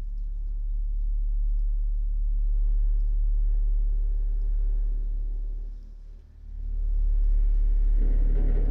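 Refrigerator making a strange, loud low hum with a rumble. The hum fades briefly about six seconds in and swells again, and a rougher buzz joins near the end.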